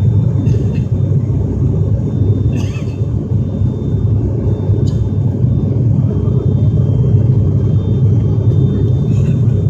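Steady, loud drone of an ATR 72 turboprop's engines and propellers heard inside the cabin during the climb after takeoff, with a faint steady high whine over the low drone.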